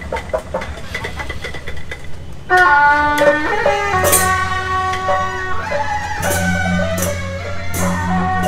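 Traditional festival music starts about two and a half seconds in: a melody with a steady drum underneath and several cymbal crashes.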